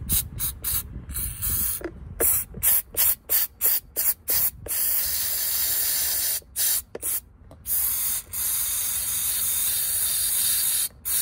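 Aerosol brake cleaner spraying through a turbo oil feed banjo bolt to flush old burnt oil out of its filter mesh. It comes first as a rapid string of short spurts over the first few seconds, then as longer steady blasts of hiss.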